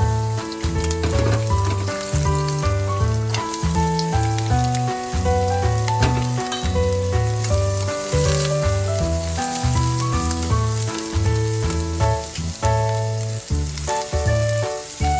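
Food sizzling as it fries, a steady hiss that swells briefly about eight seconds in, under background music with a bouncing bass line and melody.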